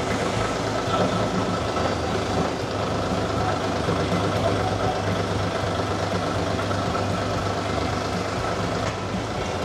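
Mini skid steer loader's small engine running at a steady speed, an even hum with no revving up or down.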